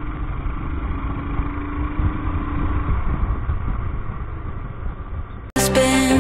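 Royal Enfield Himalayan's single-cylinder engine running as the motorcycle rides along, with a dull rumble of road noise. Music cuts in abruptly near the end.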